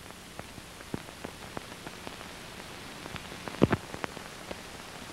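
Crackle of scattered clicks and pops over faint hiss and a low steady hum: the surface noise of a worn old film print's soundtrack running with no programme on it. The loudest pops come in a cluster about three and a half seconds in.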